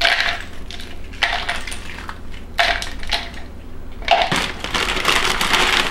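Dry crackers being crushed by hand, with the crinkle of their foil sleeve, in about four short crunching bursts, the last one longer and starting about four seconds in.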